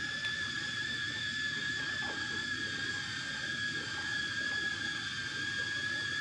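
FPV quadcopter's motors and propellers whining at one steady high pitch that wavers slightly, over a rush of wind and prop noise, as picked up by the GoPro mounted on the drone.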